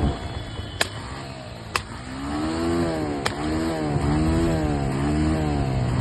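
Vehicle engine revved up and down over and over, with sharp pops about a second in, near two seconds and just after three seconds: the engine is misfiring.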